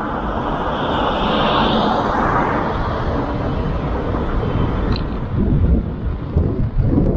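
Steady road and traffic noise from a car driving through city streets, with a brighter hiss swelling about a second in and uneven low rumbling in the second half.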